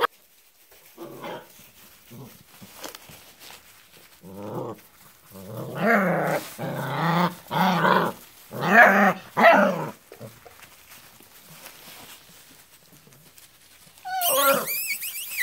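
Six-week-old Vizsla puppies vocalizing: a few faint short calls early, a run of louder pitched calls in the middle, and a high, wavering call near the end.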